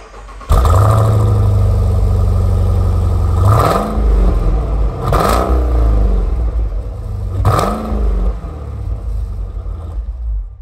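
Jeep Grand Cherokee Trackhawk's supercharged 6.2-litre Hemi V8 heard at its quad exhaust tips. It comes in suddenly at a steady fast idle, then is revved three times, each rev rising and falling back.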